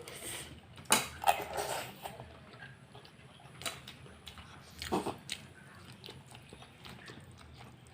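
Close-miked mouth sounds of a person eating lechon paksiw, braised pork: chewing and biting with wet smacks and sharp clicks, loudest about a second in and again around five seconds in.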